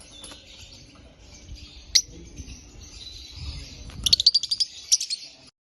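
Lovebirds chirping: one sharp, high chirp about two seconds in, then a quick run of high chirps near the end, and the sound cuts off suddenly just before the end.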